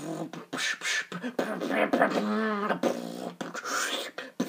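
Dubstep-style beatboxing: mouth percussion of sharp clicks and hissy snare sounds, with a sung, wavering bass note about two seconds in.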